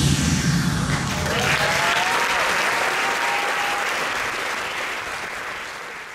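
Audience applauding and cheering as the music stops, with one voice whooping in a rising and falling glide about a second and a half in. The applause fades out near the end.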